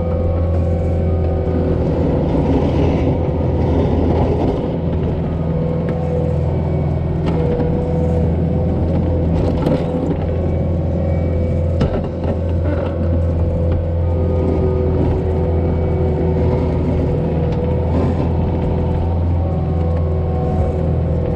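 Diesel engine of a snow-plowing construction machine running steadily under load, a constant low hum, with a few short knocks.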